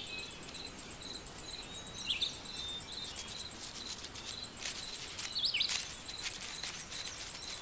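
Woodland ambience: an insect chirping in a steady, evenly pulsed rhythm at a high pitch, with a couple of short bird chirps about two and five seconds in. A brief patch of faint clicking comes around five seconds in.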